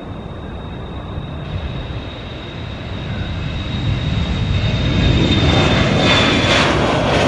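Airliner's engines at takeoff power, a rumbling roar with a steady high whine that grows steadily louder as the aircraft comes closer.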